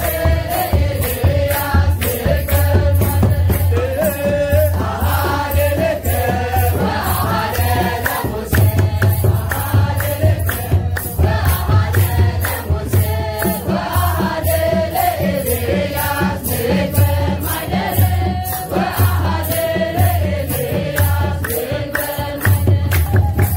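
An Ethiopian Orthodox wereb hymn sung by a group of young voices, with a kebero drum and a regular shaking rattle keeping the beat.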